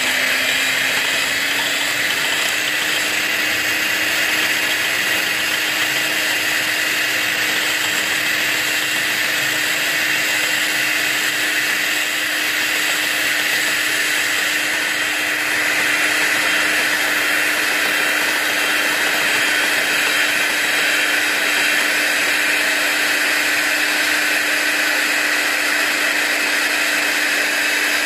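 Electric hand mixer running steadily, its twin beaters whisking chilled whipping cream in a glass bowl as it starts to froth; an even motor hum with a whirring whine above it.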